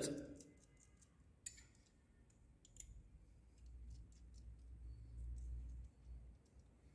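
Faint, scattered clicks of small metal parts being handled as a knee lifter knuckle and rod are fitted together by hand. The sharpest click comes at the very start, and a faint low rumble sounds in the middle.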